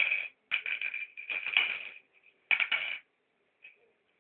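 Mangala stones clicking and rattling against each other and the board as they are handled and dropped into the pits, in four quick bursts over about three seconds and a faint last click after a pause.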